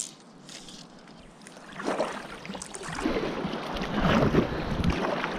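Double-bladed paddle dipping and splashing as an inflatable kayak is paddled, the strokes coming about once a second from about two seconds in, with wind rumbling on the microphone.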